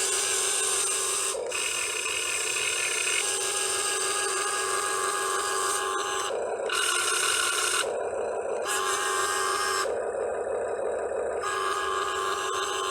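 Electric motors and all-metal gearboxes of a Top Race TR-211M remote-control excavator whirring, the sound changing every second or two as different movements start and stop.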